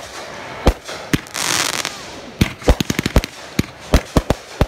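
Fireworks going off: an irregular rapid series of sharp bangs and crackles from aerial bursts, with a hissing rush lasting about half a second about a second and a half in.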